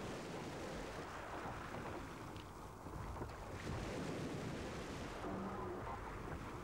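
Steady rush of sea waves and wind, with a low rumble underneath.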